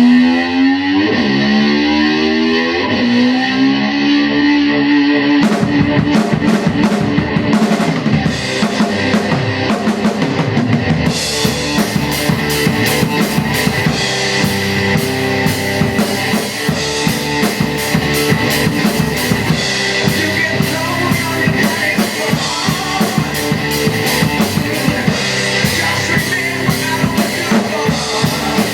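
Hard-rock song opening with an electric slide guitar sliding up and down in pitch, like a revving motor scooter. About five seconds in, a rock drum kit comes in with a steady beat under the guitar, and the cymbal work gets busier a few seconds later.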